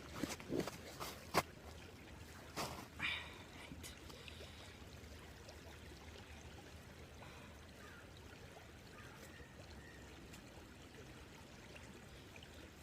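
A creek's water running faintly and steadily, with a handful of sharp knocks and scuffs in the first few seconds.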